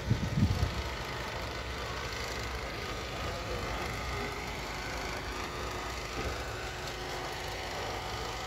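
A car engine idling steadily, with a brief gust of wind on the microphone right at the start.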